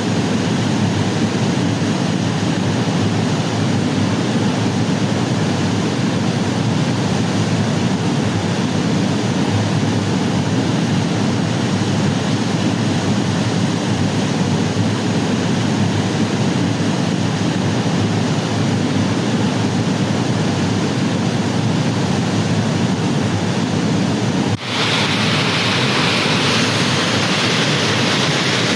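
Waterfall water falling and rushing, a loud steady roar. Near the end it breaks off briefly and comes back brighter and hissier.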